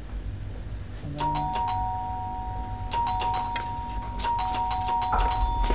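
Two-tone doorbell chime rung three times, each ring a higher note followed by a lower one, the notes ringing on.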